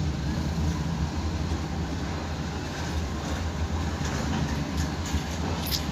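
Steady low rumble of background noise, with a few faint clicks near the end.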